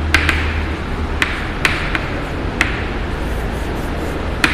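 About six short, sharp taps at uneven intervals, typical of writing on a classroom board, over a steady low electrical hum.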